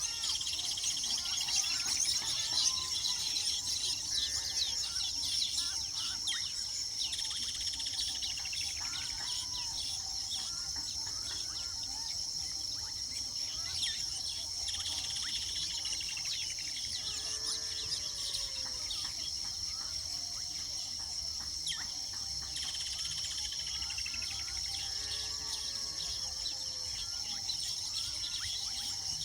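Weaver birds chattering and chirping at their nests, many short calls overlapping, over a steady high-pitched insect drone. A few times, groups of lower, rounded calls break in.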